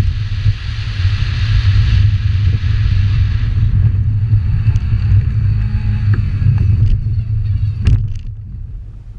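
Subaru Legacy GT's 2.5-litre flat-four engine running hard on a dirt rallycross lap, with a rushing hiss of dirt and wind over it that eases about four seconds in. A sharp knock comes near the end, and the engine noise then drops away.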